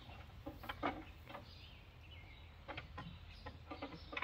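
Short metallic knocks and clanks of a pry bar working a Volvo Penta 5.7 marine engine off its drive-shaft splines, coming in two bunches about a second in and near the end. Birds chirp faintly.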